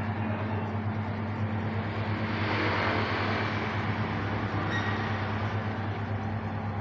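Steady low electrical hum under an even rushing noise, swelling slightly about two and a half seconds in: the background hum of a gym.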